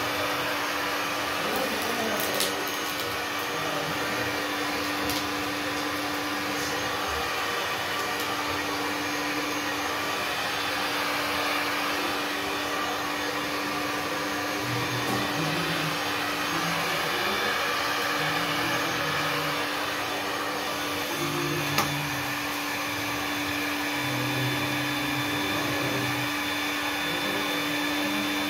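Small electric blower motor running steadily: an even whir with a constant low hum, and a few faint ticks, one sharper about three-quarters of the way through.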